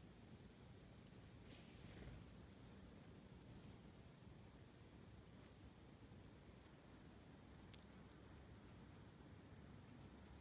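Chipmunk giving short, sharp high-pitched chip calls, five in all at uneven gaps of one to two and a half seconds.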